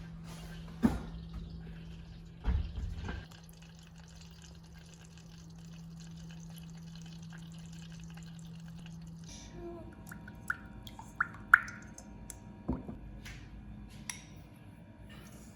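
A steady low hum that cuts off about nine seconds in. Scattered knocks come early, and several short ringing clinks and drips follow between ten and thirteen seconds in.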